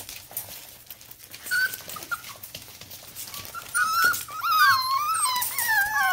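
Young Norwegian Buhund puppies, about four and a half weeks old, whimpering in high, wavering whines: a short whine about a second and a half in, then a run of overlapping whines and yelps from several pups from about the middle to the end.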